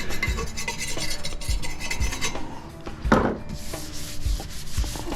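Rapid rasping and scraping against copper pipe, as drywall debris is scraped off it, with a single loud knock about three seconds in. A steady beat of background music runs underneath.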